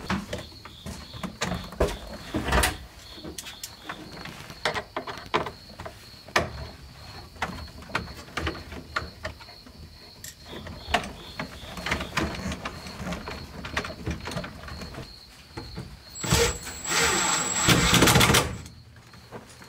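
Scattered clicks and knocks of interior trim and tools being handled in a car's dashboard, then near the end a handheld cordless power driver running for about two seconds with a thin high whine, the loudest sound here.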